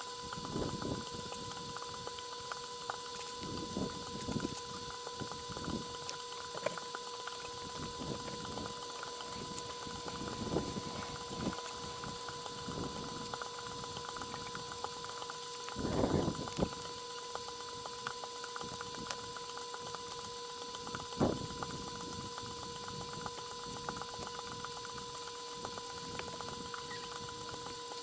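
Irregular knocks and scrapes from stone and mortar work on an arch, the loudest cluster a little past the middle and a sharp knock shortly after, over a steady high-pitched electrical hum.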